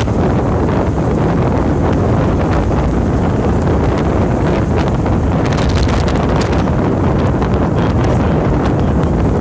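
Steady low rumble of a car driving along a road, heard from inside the cabin, with wind buffeting the microphone.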